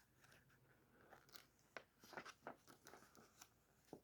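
Near silence, with faint scattered clicks and light rustling from handling a small plastic alarm clock.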